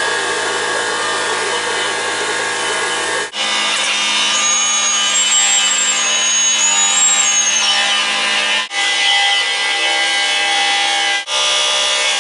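Milling machine face-cutting a cylinder head under flood coolant: steady spindle whine and cutting noise, with a high wavering squeal in the middle. The sound drops out briefly three times, and the mix of tones changes after each break.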